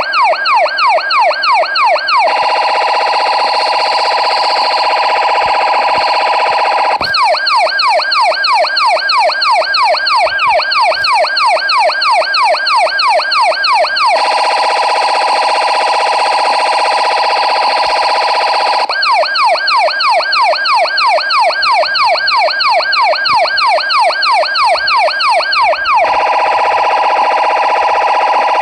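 Electronic police siren alternating between a fast yelp of quick rising sweeps, about three or four a second, and a steadier wavering tone, switching every five to seven seconds.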